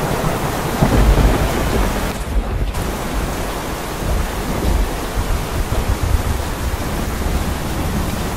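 Heavy downpour: a steady hiss of rain pelting the street and the water running over it, with a deep, gusty rumble underneath. The hiss thins briefly about two seconds in.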